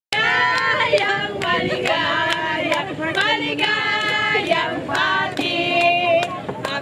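A group of women singing a birthday song together and clapping along in time.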